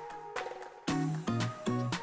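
Background music with a steady beat: pitched notes over regular percussive hits.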